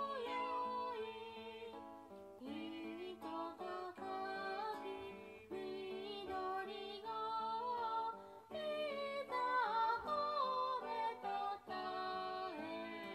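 A song with singing and guitar, played back through a small Bluetooth speaker.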